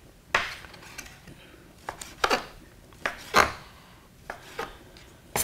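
Kitchen knife dicing raw chicken breast on a wooden cutting board: several sharp knife strokes against the board at uneven intervals, with short pauses between them.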